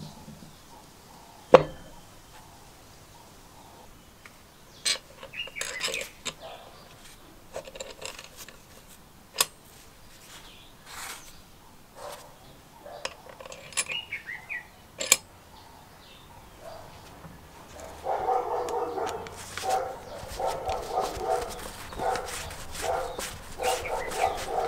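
Scattered sharp clicks and light knocks of small metal parts and a tool being handled on the stator of a vintage airbrush compressor's electric motor in its housing. For the last several seconds a louder, pulsing, pitched sound runs under the handling.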